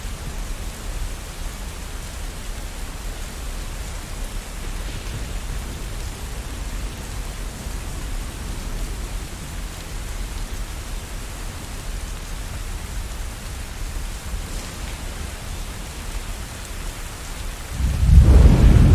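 Steady rain with a low rumble of distant thunder underneath; near the end a loud thunderclap breaks in and rumbles on.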